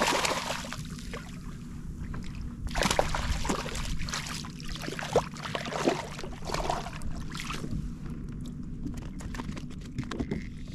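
Hooked speckled trout thrashing at the surface beside a kayak: irregular bursts of splashing and sloshing water, loudest at the start and again from about three to seven seconds in, dying down near the end.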